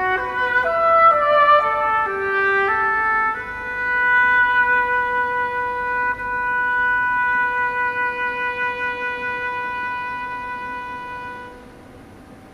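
Flute and oboe playing classical chamber music. For the first few seconds a stepping melodic line moves over a held note, then one long held note sustains and slowly fades, dying away about a second before the end.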